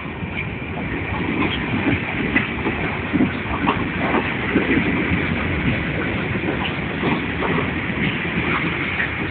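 Freight train covered hopper cars rolling past close by: a steady rumble of steel wheels on the rails, broken by irregular clacks and knocks.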